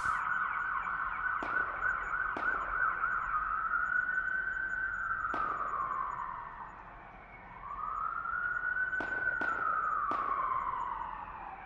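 Alert warning siren: a fast warbling tone for the first few seconds, then a slow wail that falls away, winds back up about eight seconds in, and falls again near the end. A few sharp clicks sound over it.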